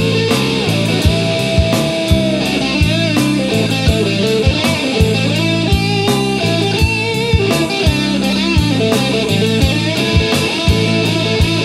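Blues-rock band playing an instrumental passage: an electric guitar lead with bent, gliding notes over a bass guitar line and a drum kit keeping a steady beat.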